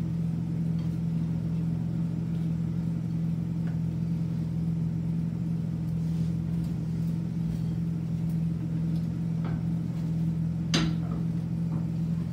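A steady, low mechanical hum, like a motor or fan running in the kitchen, with one sharp clink near the end as a cooking utensil knocks against the frying pan.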